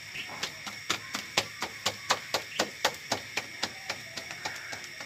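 Roti dough being slapped from palm to palm to flatten it by hand: a quick, even run of sharp pats, about four a second.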